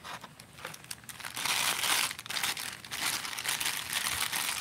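Packaging crinkling and rustling as a fishing reel is taken out of its box and unwrapped. It starts faint and grows into a denser crackle of small clicks after about a second.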